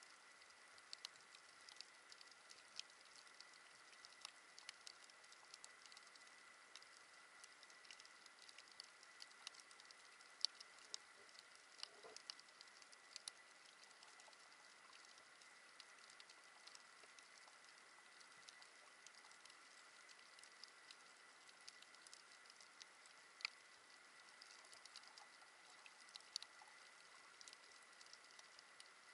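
Faint underwater crackle of a coral reef: scattered, irregular sharp clicks, typical of snapping shrimp, heard through the action camera's underwater housing. A faint steady high tone runs underneath.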